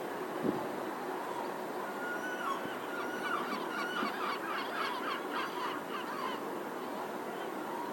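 A gull calling: one longer note, then a quick run of short yelping calls about three a second, over steady city hum.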